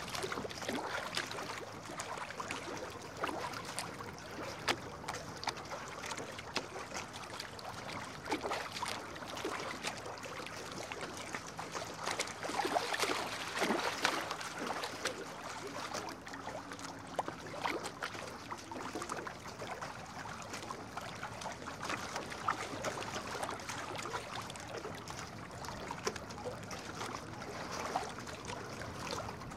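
Toilet paper rustling and crinkling, a dense crackle of many small ticks that swells for a few seconds around the middle.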